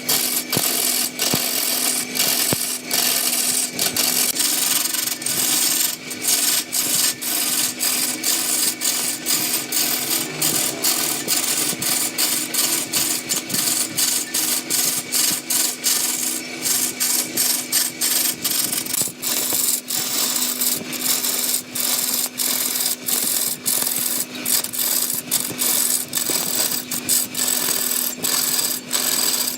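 Wood lathe running with a steady motor hum while a turning tool cuts into the spinning wood, giving a continuous scraping, rasping noise full of rapid ticks from chips and tool chatter.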